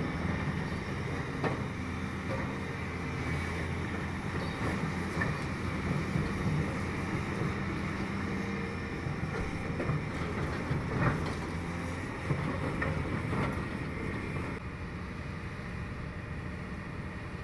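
Large Volvo EC700C demolition excavators running with a steady low diesel drone as they work their grabs. A few sharp metallic knocks and clanks come from scrap steel being handled, and the level drops slightly near the end.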